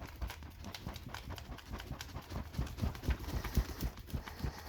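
Footsteps on a hard floor: an irregular run of dull low thumps, several a second, loudest a little past the middle.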